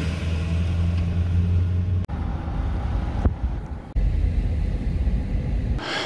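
Pickup truck driving, heard from inside the cab: a steady low engine and road drone. It breaks off abruptly about 2, 3 and 4 seconds in where short driving clips are spliced together, and fades out near the end.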